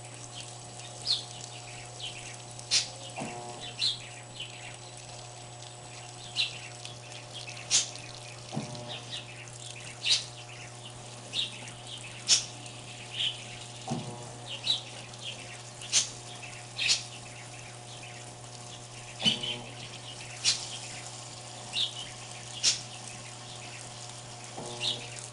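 Electrolux washing machine with water running into it: a steady hum under sharp, irregular high splashes about once a second, and a low knock roughly every five seconds.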